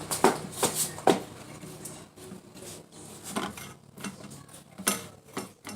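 A spoon knocking and scraping against a container while stirring a sticky flour-and-dish-soap slime mixture, in irregular clinks, most of them in the first second.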